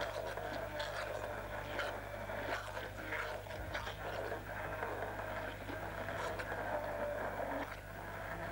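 Immersion blender running steadily in a glass bowl, puréeing strawberries, with irregular splattering as the blade churns the fruit.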